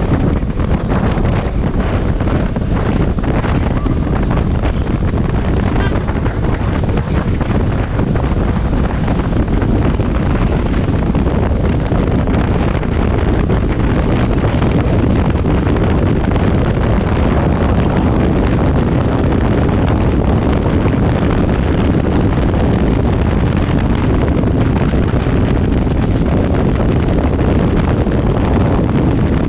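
Loud, steady wind buffeting the microphone of a camera mounted on a motorcycle at highway speed, with the bike's running noise underneath.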